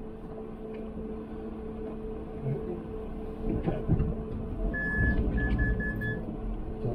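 VW Crafter van's engine running steadily at low speed, heard from inside the cab. In the second half a series of electronic beeps from the van, one longer then four short, typical of parking-sensor or reversing beeps.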